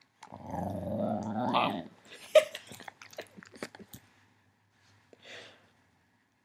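Shetland sheepdog growling close to the microphone for about two seconds, the growl rising in pitch at its end. A single sharp, loud sound follows, then a scatter of clicks and rustles right at the microphone and a short breath near the end.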